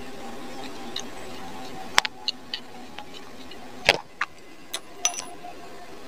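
Small screwdriver clicking and tapping against a hair clipper's circuit board and plastic housing as the board screws are driven in: a scatter of sharp clicks, the loudest about two and four seconds in, over a steady faint hum.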